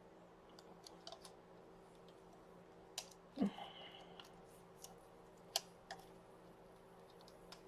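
Faint clicks and taps of small parts being handled on a Samsung Galaxy S6 replacement LCD. About three seconds in there is a louder, short peeling sound with a brief high squeak, as protective plastic film comes off the adhesive. A sharp click follows a couple of seconds later.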